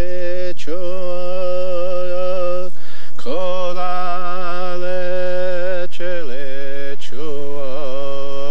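A man's voice chanting in long, held notes, each entering with a downward slide and broken by short breaths, as in a prayer song.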